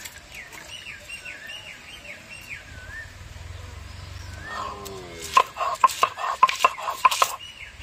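Small birds singing in warbling, wavering phrases, then a short falling call and a loud rapid run of about ten sharp notes over two seconds.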